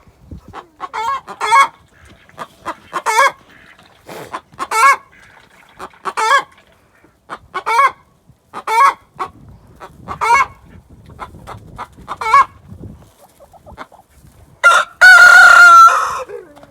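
Hen cackling loudly, one sharp call about every second and a half, ending in one long drawn-out squawk near the end. It is the call a hen keeps up after leaving the nest, which the owner takes for the 'chicken song'.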